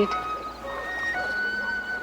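Background music: a slow melody of long held high notes, with a low held note joining about halfway through.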